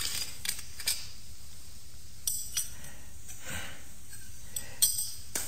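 Metal surgical instruments clinking and clicking a few times at irregular intervals during an operation, over a steady low hiss.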